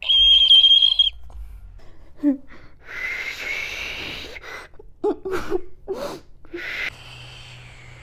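Hand whistles blown into cupped hands. The first is a loud, clear, steady high whistle lasting about a second. After it come breathy, airy attempts with only a faint tone and a few short puffs.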